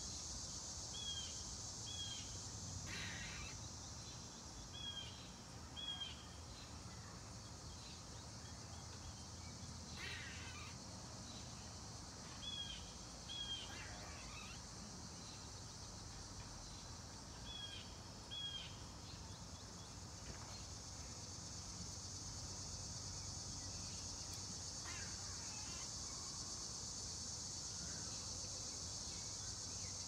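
Steady high-pitched insect chorus, with a short paired call that bends in pitch repeating four times, and a few brief scratchy noises.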